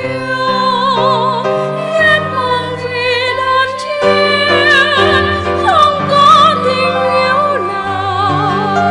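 Music: a singer holding long notes with wide vibrato over sustained instrumental chords.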